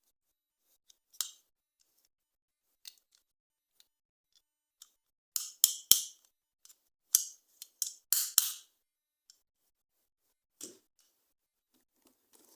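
Short, sharp, crisp sounds of toy packaging being opened, coming in irregular clusters, the loudest a little past halfway.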